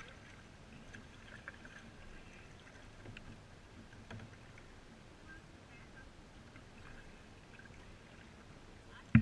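Quiet water lapping and light paddle splashes around kayaks, with a few faint small knocks. A single sharp, loud knock comes right at the end.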